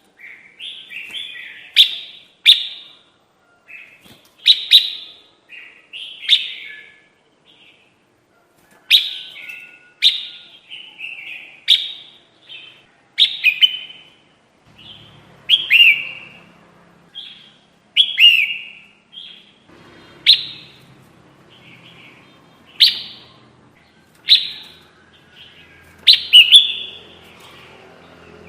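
Crested bulbul ('kutilang jambul') calling in short, sharp chirping phrases, one every second or two. This is the kind of bird call used as a lure for trapping. A faint low hum comes in about halfway through.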